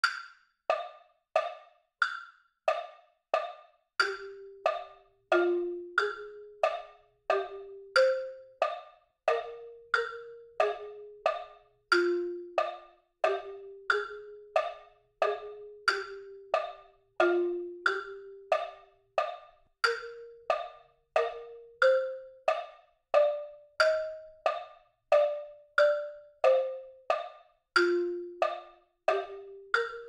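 A click track ticks on every beat at 90 beats per minute, three beats to the bar. After two bars of clicks alone, a plain-toned melody instrument comes in about four seconds in and plays a slow tune in E-flat major, one note per beat or held over two. It opens G, F, A-flat, G, C.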